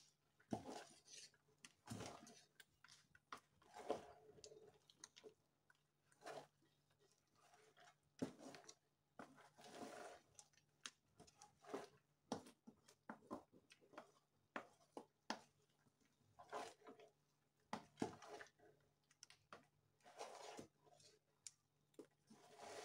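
A big metal pot of thick leafy afang soup being stirred with a long spatula: irregular wet squelching and soft knocks and scrapes against the pot, coming every second or so.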